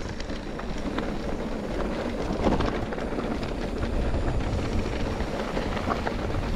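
Mountain bike riding at speed: wind rushing over the microphone, with tyre rolling noise and a few small rattles.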